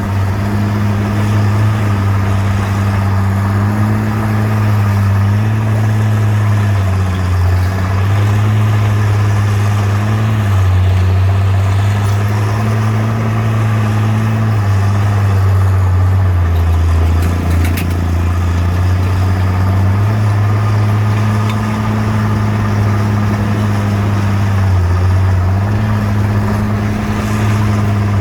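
Bulldozer's diesel engine running steadily, its pitch stepping up and down every few seconds as the load changes, with a brief drop and a few clanks a little past the middle.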